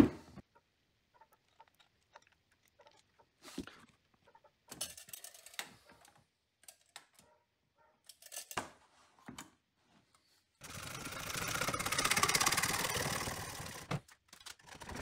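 A saw cutting through PVC pipe: a continuous fast-rhythm cutting noise that swells and then fades over about three seconds near the end. It is preceded by faint scattered clicks and taps of plastic parts and a tape measure being handled.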